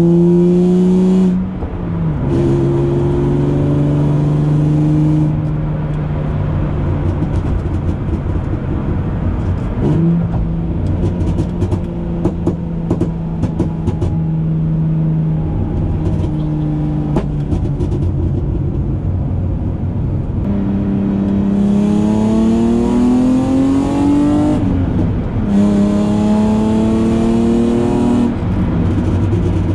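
Straight-piped BMW M52B25 straight-six of an E36 323i, heard from inside the caged cabin on the move. It shifts up about a second and a half in and runs lighter through the middle, with a scatter of crackling pops from the exhaust. Near the end it revs up twice, with a gear change in between.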